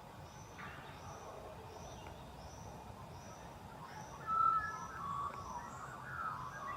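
Birds calling in a forest: a short, high, thin note repeated about twice a second throughout, joined about four seconds in by louder warbling song phrases, over a low steady background hum.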